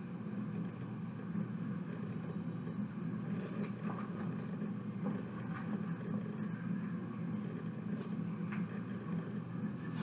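Steady low background hum, with a few faint light clicks as small toy pieces are handled.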